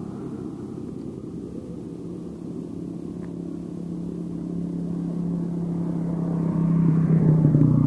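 A vehicle engine running steadily, growing louder in the last two seconds.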